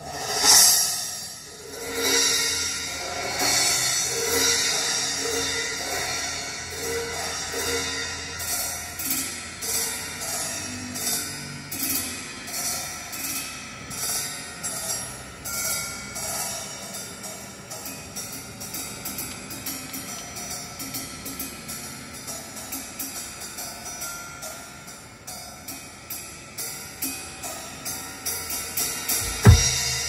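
Recorded drum solo played back through a car's audio system and heard inside the cabin: a drum kit with cymbals, hi-hat and snare, starting suddenly with a loud hit and going on in a quick, even rhythm of strokes. A heavy low drum hit stands out near the end.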